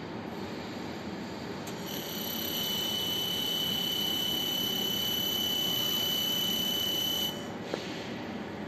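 Robot fiber laser welding head giving a steady high-pitched whine during a weld pass. The whine starts about two seconds in and cuts off suddenly when the weld ends, over a constant machinery noise, and a small click follows.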